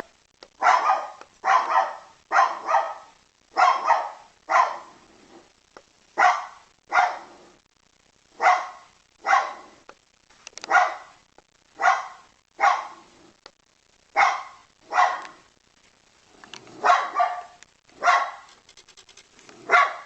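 A dog barking over and over, about twenty single barks roughly a second apart, some coming in quick pairs.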